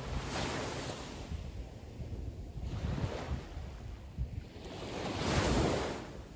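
Small waves breaking and washing up on a sandy beach, the surf swelling and ebbing, loudest about five seconds in and then dying away.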